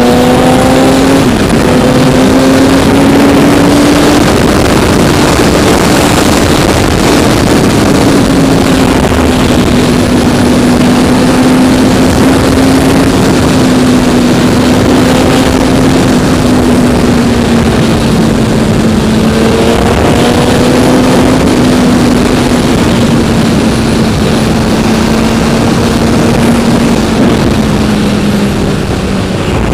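BMW HP4 inline-four engine running steadily at speed under a heavy rush of wind. Its pitch climbs over the first few seconds, then holds fairly even and eases down slightly near the end.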